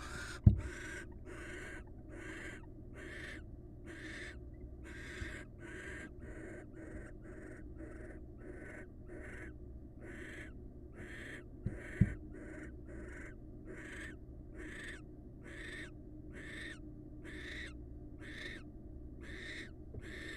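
Barn owl giving short, hissing, snore-like calls over and over, evenly spaced at about three every two seconds. Two dull thumps stand out, one about half a second in and one about twelve seconds in.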